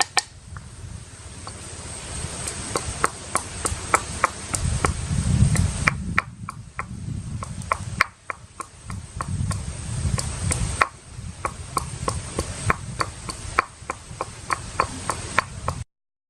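Irregular sharp clicks and knocks, often several a second, over a low rumble, broken by a moment of dead silence near the end.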